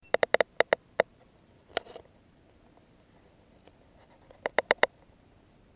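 Short runs of sharp clicks or taps: about six in quick succession in the first second, one more near two seconds, then five close together near the end.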